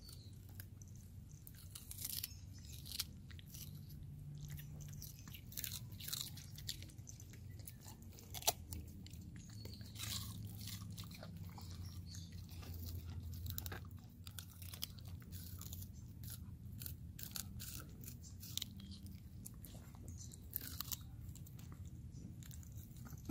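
A dog crunching and chewing pieces of raw green vegetable taken from a hand, in irregular crisp crunches.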